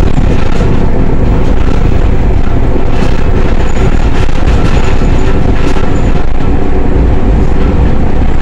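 A bus's engine running hard under load as the bus travels at speed, heard loud from inside the bus, with a constant low drone and occasional rattles from the bodywork.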